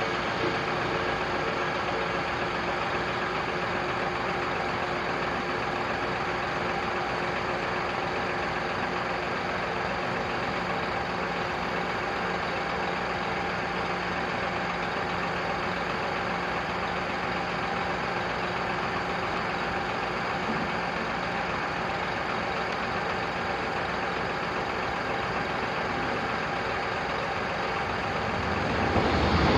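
Steady hum of idling vehicle engines. The noise grows sharply louder in the last second as an oncoming train arrives.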